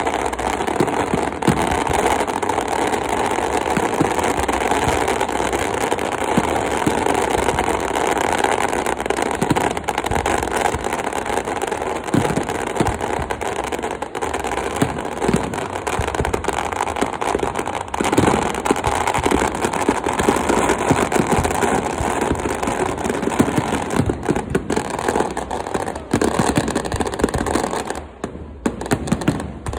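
Fireworks going off in a dense, continuous barrage of crackling and popping, loud and steady, dropping off briefly near the end.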